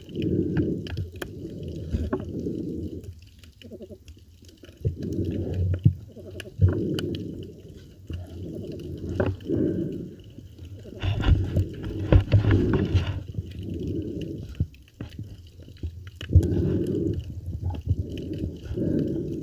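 A snorkeling spearfisher's breathing and gurgling water, muffled underwater, in uneven bursts about a second long with short pauses between. It is louder for a stretch about twelve seconds in.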